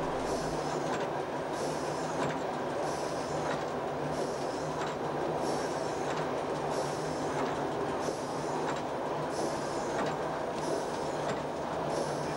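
Cab of an ALn 668 Breda diesel railcar running at speed over a steel truss bridge: steady drone of its Fiat naturally aspirated engines with wheel-and-rail rumble. A windscreen wiper swishes across the rain-wet glass about once a second.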